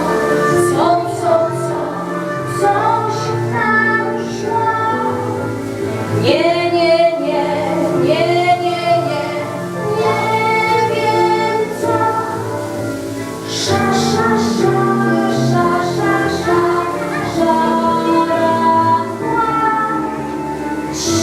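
A song with instrumental accompaniment, sung by a woman's voice and children's voices.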